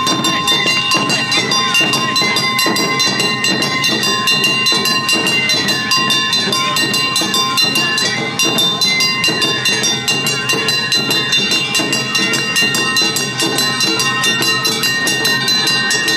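Awa odori festival music: a fast, even percussive beat of drums and clanging hand gong driving on without a break, with steady high held notes over it.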